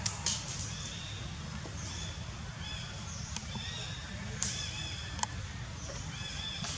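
Short, high chirping animal calls repeating several times a second over a steady low rumble, with a few sharp clicks just after the start and again around four and five seconds in.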